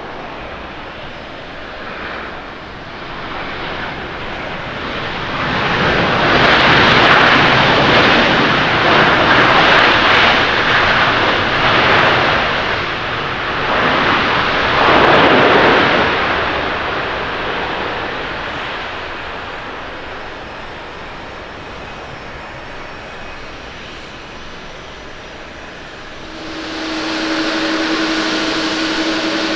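Airbus A350-900's Rolls-Royce Trent XWB jet engines during the landing roll-out: a loud jet rush swells about five seconds in, stays strong for ten seconds and dies away, the sound of reverse thrust slowing the airliner. Near the end it gives way to a steadier, lower hum with a held tone.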